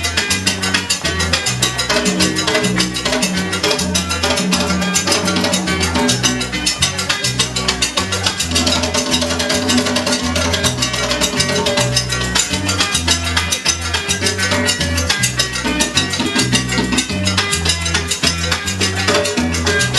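Salsa music with a steady dance beat: a stepping bass line under dense percussion, with a few held notes sounding a little before the middle.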